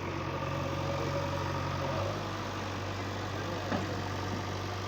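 Engine idling steadily with a low, even hum that shifts slightly in pitch about two seconds in, and a single short click near the end.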